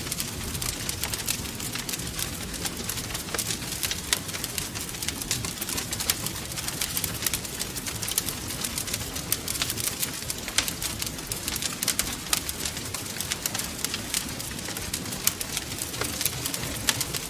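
Wood fire in a fireplace crackling, with frequent sharp pops and snaps over a steady low rumble of the flames.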